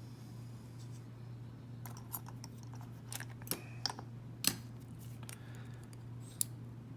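Small metal parts clicking and tapping as a padlock core is taken apart and its pin tumblers removed: irregular sharp clicks, starting about two seconds in and the loudest near the middle, over a steady low hum.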